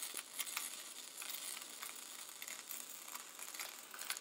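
Gasless flux-core MIG welding arc, a YesWelder YWM-200 feeding .030" flux-core wire, crackling and sizzling steadily as a small bead is run on thin-wall galvanized steel tubing.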